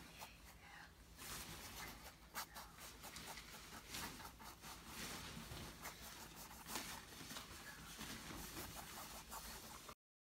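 Faint scratchy strokes of a bristle paintbrush scrubbing acrylic paint across stretched canvas. They start about a second in and cut off abruptly near the end.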